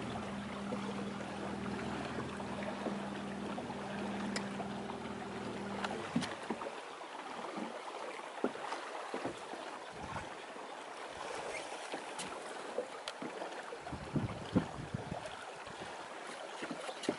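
Electric trolling motor humming steadily for about six seconds, then switched off. Water washing along the hull of the drifting boat and wind on the microphone continue, with scattered light knocks.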